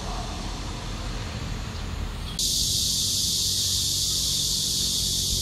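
Cicadas in the street trees buzzing in a loud, steady, high-pitched chorus that comes in suddenly about halfway through and cuts off abruptly at the end. Before it, a low traffic rumble with only a faint high buzz.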